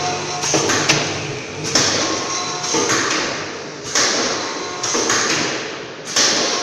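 Hair dye and shampoo sachet packing machine running, its cycle repeating about once a second: a sharp clack followed by a hiss that fades before the next one.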